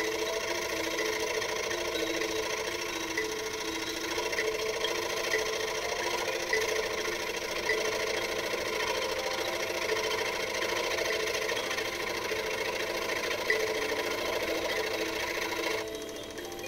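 Rexon electric scroll saw running, its blade moving rapidly up and down as it cuts through a thin wooden plate with a steady, fast, even buzz. The sound drops away abruptly just before the end.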